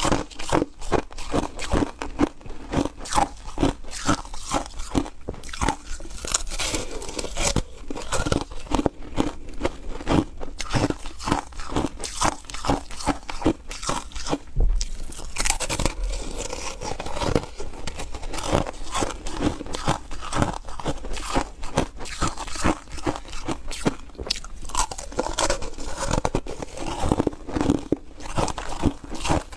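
A person biting and chewing frozen green foam ice: a dense run of brittle crunches, several a second.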